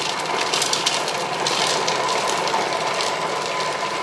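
Thermomix TM6 blade chopping raw carrots and the other salad ingredients at speed 5 in its stainless steel bowl: a steady whir with a faint steady whine.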